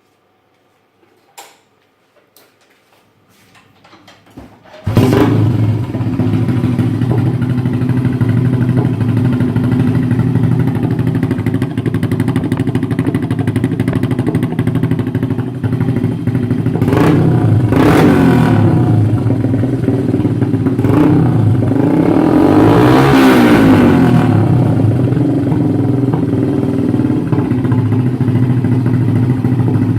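A few faint clicks, then about five seconds in a vehicle engine starts abruptly and runs steadily and loudly, with a brief rise and fall in engine speed a little over twenty seconds in.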